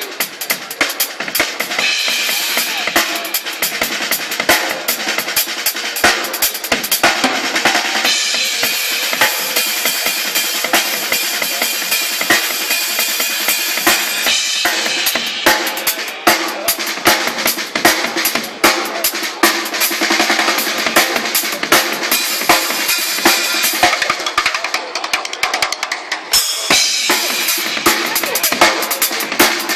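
Pearl drum kit played at a fast, busy beat: bass drum and snare hits with cymbals washing over them. The cymbals thin out from about halfway through and come crashing back in near the end.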